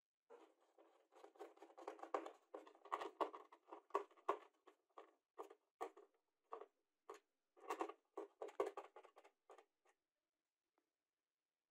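A hand screwdriver turns a screw through a round wooden pad on a compact router's base. It makes a scratchy run of scraping first, then separate short creaks and clicks, and these stop about ten seconds in.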